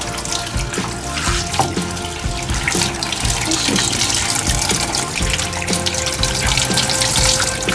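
Water spraying from a grooming shower hose onto a dog's wet coat and head during a rinse, a steady hiss. Background music plays underneath.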